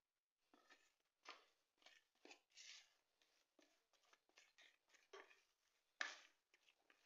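Faint, irregular scrapes of a silicone spatula scraping a thick, creamy mixture out of a plastic bowl, with one louder scrape about six seconds in.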